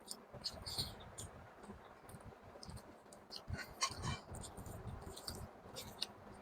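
Close-miked eating of chicken in gravy: irregular wet clicks and crackles of chewing and mouth sounds, a few louder ones just under a second in and around four seconds in.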